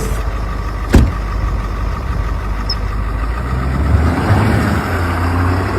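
Pickup truck engine running, with one sharp knock about a second in. The engine note grows stronger after about three seconds.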